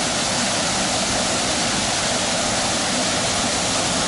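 Small waterfall pouring, a steady rush of falling water.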